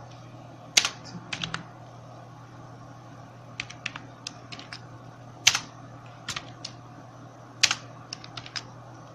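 Computer keyboard typing: irregular keystrokes in short clusters separated by pauses, with a few louder single key strikes, over a faint steady low hum.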